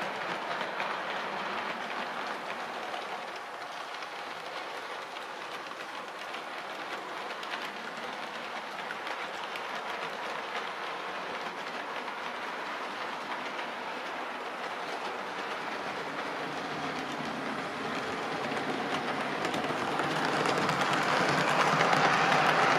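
H0-scale model train, a Mehano SNCF CC70000 locomotive hauling Jouef passenger coaches, running on layout track: a steady rolling clatter of wheels on the rails. It grows louder over the last few seconds as the locomotive passes close.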